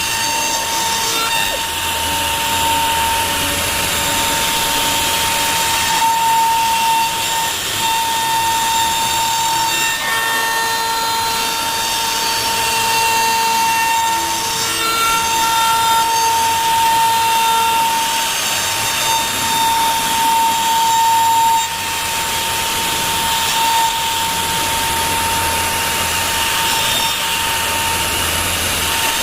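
CNC router spindle with a steady high whine as its bit cuts through wood on a rough clearance pass. Shorter tones come and go as the machine moves.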